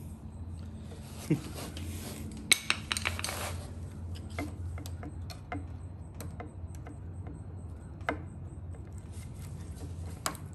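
Small hand tools clicking and clinking against motorcycle tail-light parts: a few sharp clicks, a quick run of rattling clinks about two and a half seconds in, and single clicks later, over a steady low hum.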